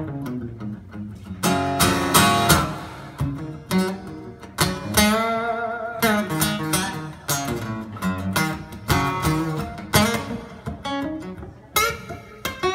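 Solo acoustic guitar strummed in an instrumental break, sharp chord strokes with notes ringing out between them.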